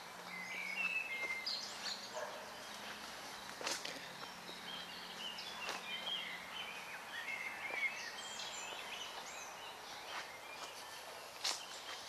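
Woodland birdsong: several small birds chirping and warbling throughout, with a few sharp snaps of footsteps on twigs and leaf litter.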